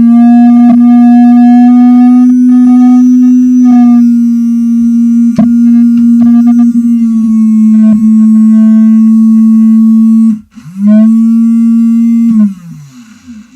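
Pizza Thrower van toy's battery-powered motor running with a loud, steady hum. It cuts out briefly about ten seconds in, runs again for about two seconds, then stops with a falling pitch.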